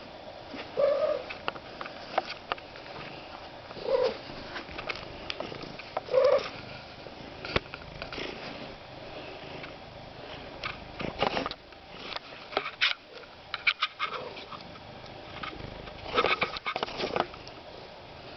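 A cat making short, silly noises: brief pitched calls a few seconds apart, then bursts of quick clicky sounds later on.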